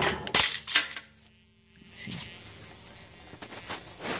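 Sledgehammer blows on a car's front suspension, sharp metal-on-metal strikes to knock the ball joint loose from the steering knuckle. Two hard hits come about a third of a second apart near the start, followed by a few fainter knocks near the end.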